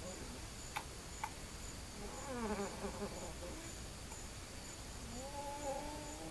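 Stridor: squeaky, pitched noisy breathing, with a wavering squeak falling in pitch about two seconds in and a longer, steadier squeak starting about five seconds in.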